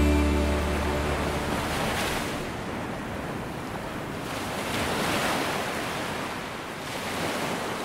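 Ocean waves washing in, swelling and fading every few seconds, as a held note of background music dies away in the first second or so.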